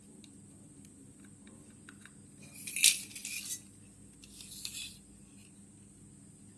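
Small hard parts clinking and rattling as they are handled: a few scattered light ticks, then two short flurries of clinks, the loudest about three seconds in.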